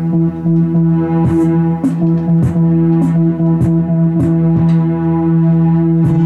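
Music: a loud held drone chord with a regular percussive beat coming in about a second in, a little under two hits a second.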